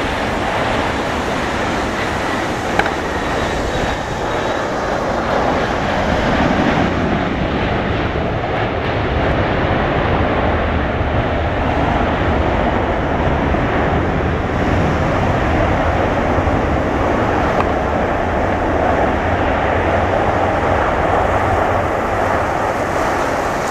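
Boeing 737-800 airliner's CFM56-7 jet engines running, a loud steady noise as it touches down on a wet runway and rolls out, a little louder from about six seconds in.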